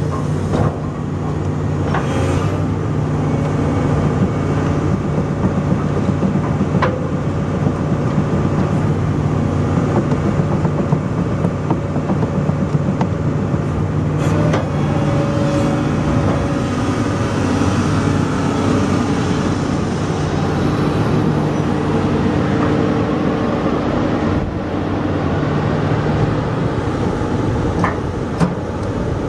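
2004 Link-Belt 330 LX long-reach excavator's diesel engine running steadily, with a few sharp clanks and squeaks from its steel crawler tracks as the machine moves.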